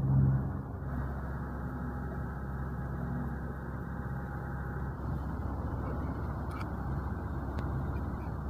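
Steady low drone of a sailing yacht's engine running under way, with the rush of water along the hull.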